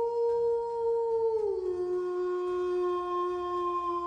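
Wolf howling: one long, steady call that slides up at the start and steps down to a lower held pitch about a second and a half in.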